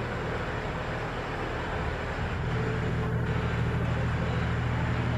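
Steady low engine rumble, a little louder from about halfway through.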